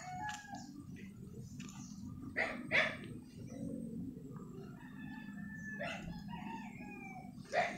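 A rooster crows once, a drawn-out call from about five to seven seconds in. Two short, sharp sounds come about two and a half seconds in, over a steady low rumble.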